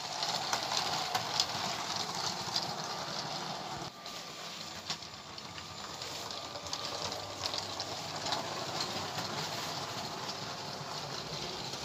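A battery-powered Lego toy train running on plastic Lego track: a steady motor whir and wheel rumble with faint irregular ticks.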